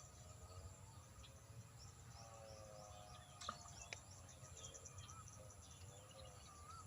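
Faint outdoor ambience: birds chirping and insects, with two sharp clicks near the middle.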